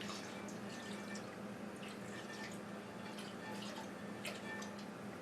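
Milk being poured over liver in a bowl: faint trickling with small scattered drips and splashes.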